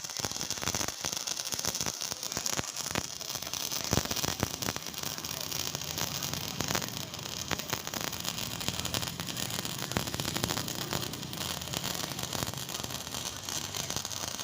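Electric arc welding: a steady crackling hiss with frequent small pops as the arc burns.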